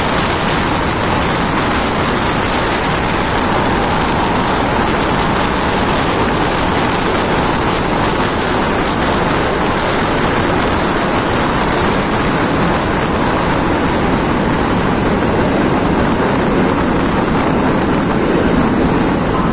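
Steady rush of a passenger train running at speed, heard from an open carriage window: wheels rolling on the rails mixed with air buffeting the microphone, loud and even throughout.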